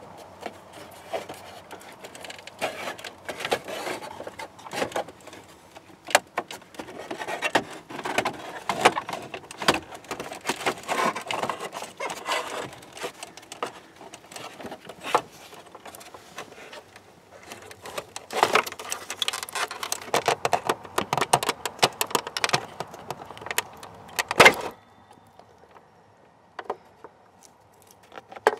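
Many light plastic clicks and rattles as a 2004 Chevrolet Silverado's instrument cluster is worked out of the dashboard by hand. They ends with a sharp click about three-quarters of the way through, after which it goes much quieter.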